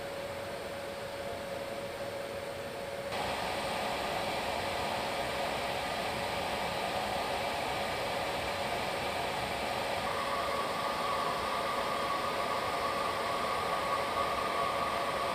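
Steady hiss of a B-52H's jet engines and rushing air, heard from inside the bomber in flight, with a steady hum underneath. The noise steps up about three seconds in, and a higher whine joins about ten seconds in.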